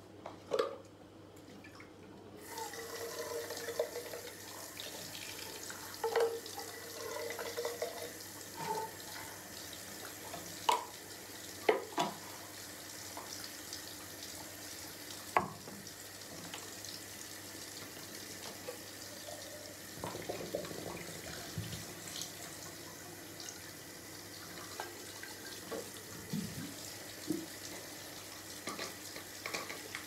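Bathroom faucet running into the sink, switched on a couple of seconds in and then flowing steadily, with scattered light knocks and clatter.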